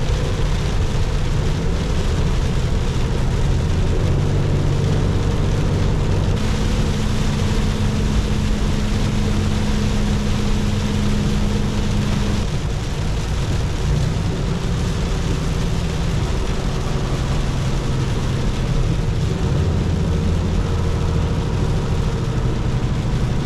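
Peterbilt 579 semi truck on the road, heard from inside the cab: a steady low engine drone and road noise. A steady hum rises over it for about six seconds in the middle.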